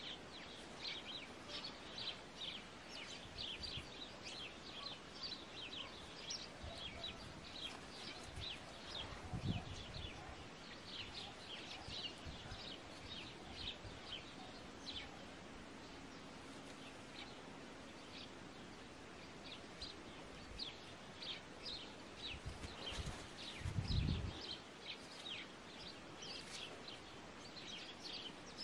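Small birds chirping, many short high chirps in quick runs. A low thump comes about nine seconds in, and a louder cluster of low thumps comes around twenty-four seconds.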